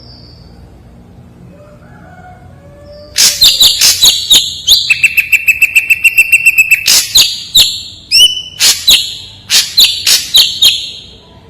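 Ashy drongo singing: after a quiet start, a loud run of sharp high notes, including a fast series of clicks over a held high whistle and a quick rising note, stopping shortly before the end.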